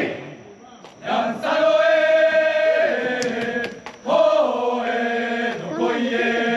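Group of men chanting in long, drawn-out held calls, the festival chant of a Nagasaki Kunchi Shachi Daiko troupe. One call starts about a second in and drops in pitch partway, and a second begins about four seconds in and is held.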